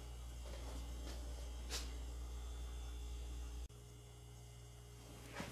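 Low, steady electrical hum with a faint tick about two seconds in. The hum drops suddenly a little before four seconds in and carries on more quietly.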